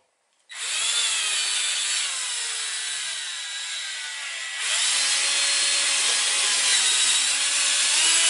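Cordless drill boring a 4 mm hole into a boxwood blank: a steady motor whine over wood-cutting noise. It starts about half a second in, eases off a little in the middle and picks up again for the second half.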